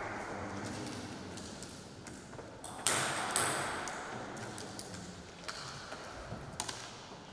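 Plastic table tennis ball bouncing a few times, sharp ringing pings, the two loudest about half a second apart near the middle, with fainter ticks later. The tail of applause fades out at the start.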